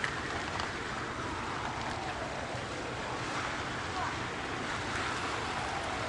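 Steady wind noise buffeting the microphone outdoors, with faint distant voices now and then.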